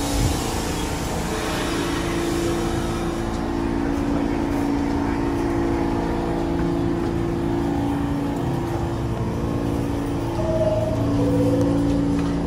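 New York City subway train at the platform, giving off a steady multi-tone hum over a rumble, with a high hiss that fades over the first few seconds. Two short tones, the second lower, sound about ten seconds in.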